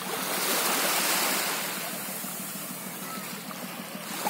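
Small sea waves washing up onto a shelly sand beach. One wash swells about half a second in and eases off after a second or so.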